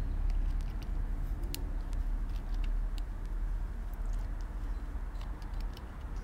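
Scattered small sharp clicks of metal carburettor parts being handled as the float assembly of a Bing carburettor is fitted, over a steady low rumble.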